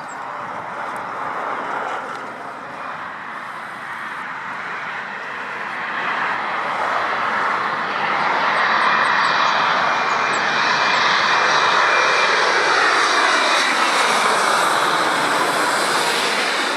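Jet airliner on landing approach, its engine roar growing louder and then holding at its loudest as it passes close, with a tone that falls steadily in pitch as it goes by.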